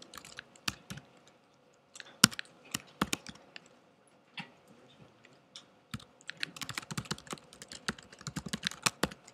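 Typing on a computer keyboard: irregular keystroke clicks, a few scattered at first, then a pause, then a quicker run of keystrokes over the last few seconds.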